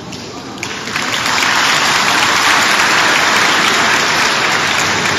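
Audience applauding, swelling about a second in and easing off a little near the end.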